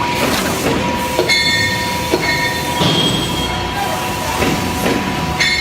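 Industrial metalworking noise: steady machine running, with high metallic squeals coming and going and scattered clanks, fitting steel track-chain links being handled and moved.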